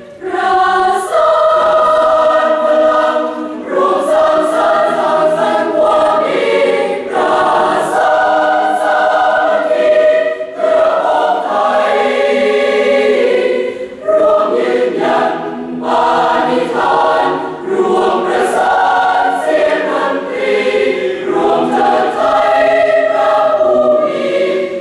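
A large mixed choir singing in harmony, phrase after phrase, with short breaks between phrases.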